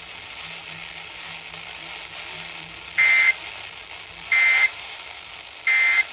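Emergency Alert System end-of-message signal: three short, loud digital data bursts, each a shrill two-tone chirp about a third of a second long, spaced about 1.3 s apart. They come after a few seconds of steady radio hiss and mark the end of the relayed alert.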